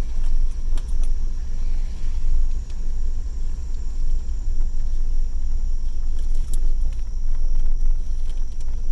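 Inside a vehicle's cab while driving slowly over a dirt and gravel track: a steady low rumble from the engine and tyres, with scattered small clicks and rattles and a faint steady high whine.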